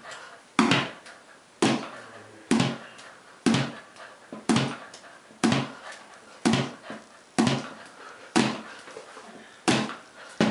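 A ball bouncing on a hard floor, about once a second, some bounces followed by a smaller quick rebound.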